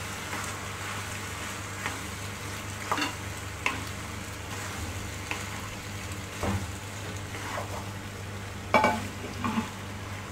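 Boiled macaroni being stirred through masala in a non-stick frying pan with a wooden spatula: a steady soft sizzle of the oil and masala, with scattered scrapes and taps of the spatula against the pan, the loudest near the end.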